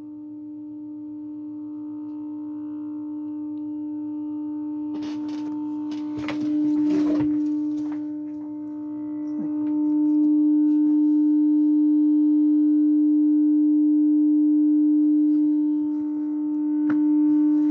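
A steady low hum-like tone from the speaker of a 1949 Motorola VT73 television, slowly growing louder as the set warms up after being switched on. Its loudness swells and dips as the camera moves around the set, with some rustling from handling about five to eight seconds in.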